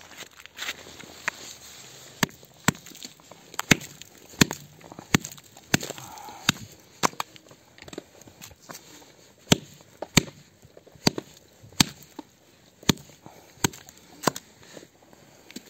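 Footsteps crunching on icy, crusted snow: a sharp crunch about every two-thirds of a second, pausing briefly near the middle.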